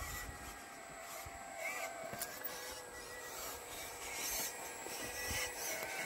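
RC model Volvo excavator working: a faint steady motor whine while the end of its arm scrapes into the soil, giving soft scratching of dirt and twigs with a few small clicks.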